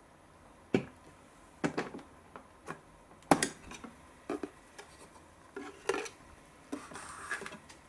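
Hands opening the clear plastic door of a toy cup-noodle vending machine and lifting out a paper cup of instant noodles: about a dozen sharp plastic clicks and knocks, the loudest a little over three seconds in, ending with a brief rustle of the cup.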